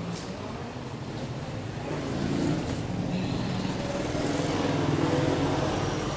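Road traffic: motor vehicle engines running with a steady low hum, growing louder about two seconds in.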